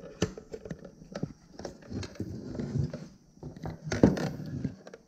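Plastic housing of a stock Ford fuel pump module handled and pulled apart by hand: irregular plastic clicks and knocks, the sharpest about four seconds in.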